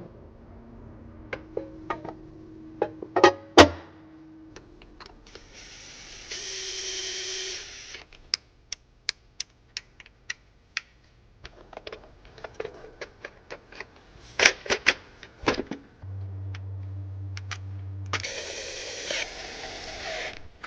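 Engine reassembly: sharp metallic clicks and knocks of hand tools and parts, with two hissing bursts of a power tool about two seconds each, and a steady hum near the end.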